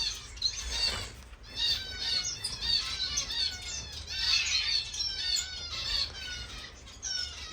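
Many small finches in a birdroom calling together: a steady overlapping chatter of short, high chirps, many of them sweeping downward in pitch.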